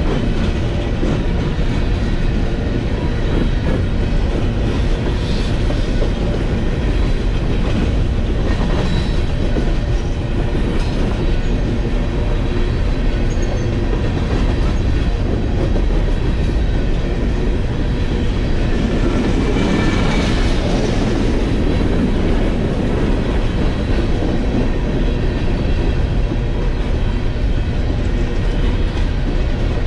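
Freight train of coal gondola cars rolling past at close range: a steady rumble of steel wheels on the rails, with a louder stretch about twenty seconds in.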